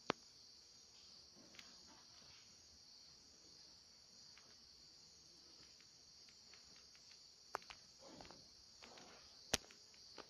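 Crickets chirping steadily in a high, even band, broken by a few sharp clicks: one just after the start, a couple around seven and a half seconds in, and the loudest about nine and a half seconds in.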